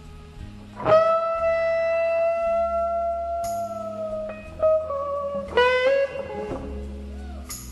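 Instrumental background music: a guitar holds one long note from about a second in that sinks slightly in pitch, then plays a few shorter notes, over a steady bass line.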